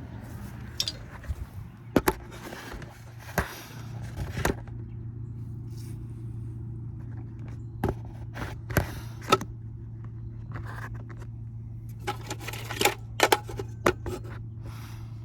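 Irregular sharp metal clinks, knocks and scrapes from dismantling an air-conditioning unit, with a cluster of them near the end, over a steady low hum.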